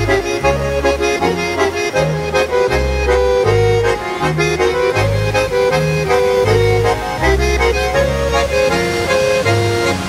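Accordion-led Swiss Ländler music, a lively melody over a bass that steps between notes on each beat.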